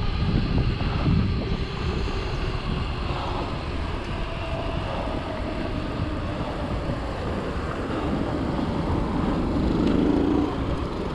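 Steady low rumble of a running motor vehicle, with faint engine tones wavering and swelling slightly near the end.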